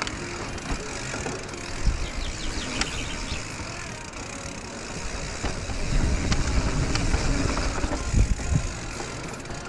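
Radon Swoop enduro mountain bike riding down a dirt singletrack: a steady rumble of tyres over dirt and roots, with scattered sharp clacks from the bike. It gets louder and bumpier about six seconds in.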